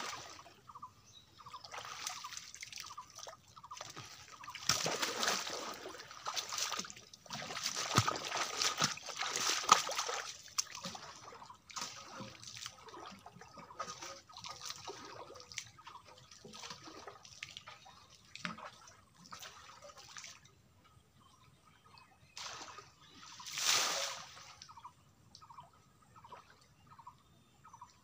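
Pond water splashing and sloshing as a large basin is dipped and flung out, again and again. The splashing is busiest a few seconds in, with one more big splash near the end.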